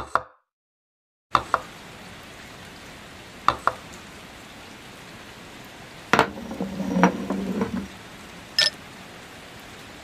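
Wooden toy tea set pieces being handled: light wooden clicks and knocks as the teapot lid and a cup are touched and set down on their wooden saucers. Pairs of clicks come near the start and about three seconds in, a longer clatter follows around six to eight seconds, and one last click comes near the end, all over a steady hiss.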